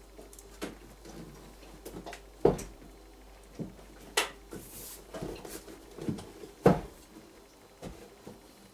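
Irregular knocks, clicks and clatter of hard parts being handled, with two louder knocks about two and a half and seven seconds in and a brief rustle near the middle.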